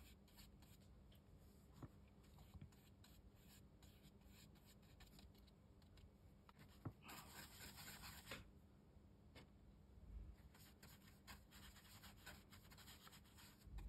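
Faint sounds of a watercolour brush working paint on cotton rag paper, with scattered light ticks. A louder stretch of brushing comes about seven seconds in and lasts over a second.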